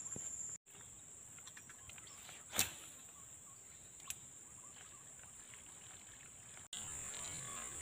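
Steady high-pitched chirring of insects in a swamp, with one sharp short knock about two and a half seconds in and a faint tick about four seconds in.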